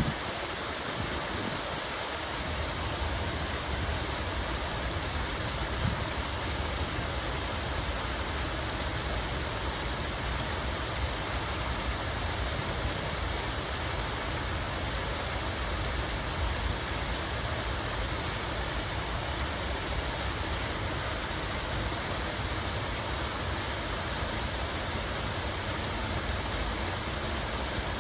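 Water running and splashing steadily, an even, unbroken rush.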